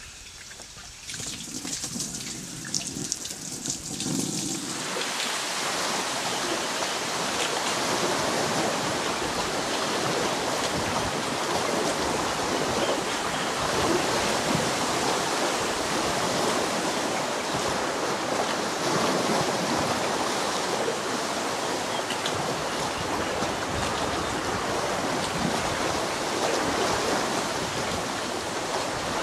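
Small waves lapping at a lake shore, a steady rush of water that builds over the first few seconds and then holds level.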